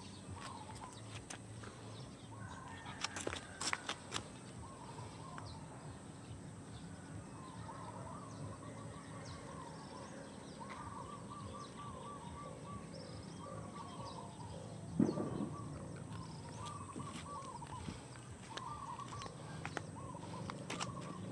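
A bird calls over and over in short warbling phrases. A few sharp clicks come about three to four seconds in, and a single louder thump comes around fifteen seconds in.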